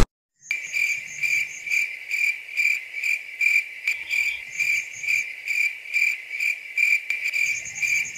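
Crickets-chirping sound effect: a steady high trill pulsing two or three times a second, starting abruptly about half a second in. It is the comic cue for awkward silence.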